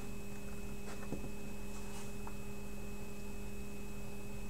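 Steady electrical hum, with a few faint, light clicks about one and two seconds in.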